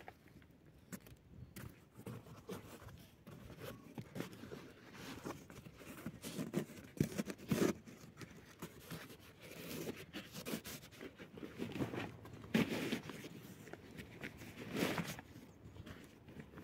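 Irregular crunching and scraping noises in several short clusters a few seconds apart.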